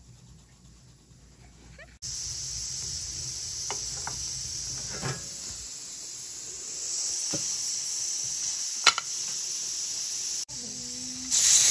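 Pressure cooker on the stove venting steam: about two seconds in, a loud steady hiss from its weighted valve starts, showing the cooker is up to pressure. A few sharp clicks come through it, one loud near the middle.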